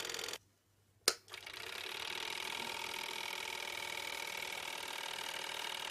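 Sekonic 8mm cine projector running steadily, then stopping abruptly as it is switched off. After a short silence a sharp click of its switch sounds, and the motor and film mechanism start up again and run up to a steady speed, now running in reverse.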